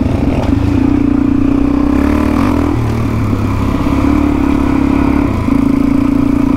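Single-cylinder four-stroke dirt bike engine running at steady throttle while riding, the engine note easing briefly near three seconds in and again a little after five seconds.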